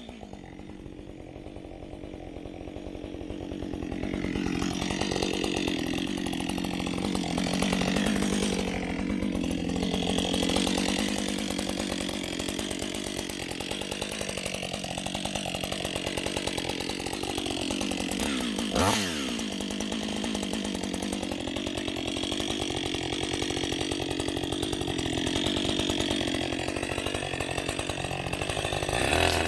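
Gas chainsaw running under load, cutting into a tree, its engine note wavering as the cut goes on. About two-thirds through, the revs drop sharply for a moment and then climb back up.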